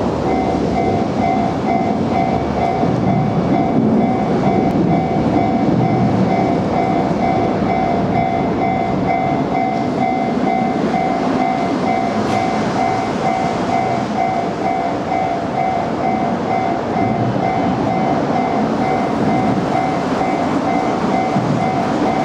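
Japanese level-crossing alarm ringing its electronic bell in a steady, rapid repeating rhythm, over the continuous rumble of a freight train running past on the line.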